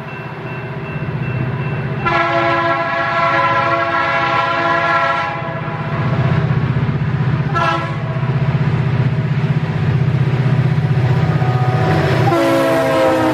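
Air horn of a BNSF SD40-2 (an S3LU airhorn): long blasts and one short toot. The last blast, about 12 seconds in, drops in pitch as the locomotive passes close by. Underneath, the low drone of three SD40-2s' turbocharged EMD 645 diesel engines grows as the train approaches.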